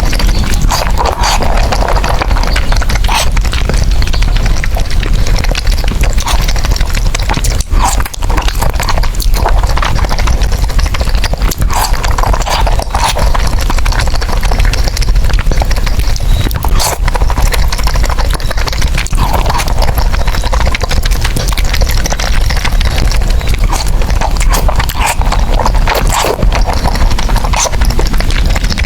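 Close-miked eating of spicy noodles: continuous wet chewing and lip smacking with many sharp mouth clicks, and a longer slurp every few seconds.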